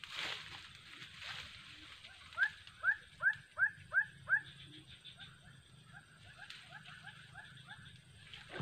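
An animal giving repeated short, high yelping calls: about six loud ones a third of a second apart, starting a couple of seconds in, then a quicker, fainter run of them.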